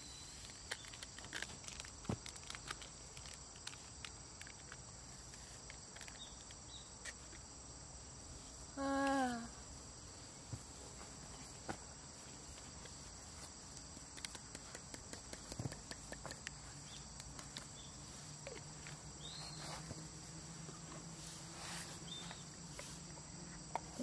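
Steady high insect chorus with scattered light clicks and knocks. About nine seconds in comes a short call or voice sound that falls in pitch, and a low steady hum joins in for the last few seconds.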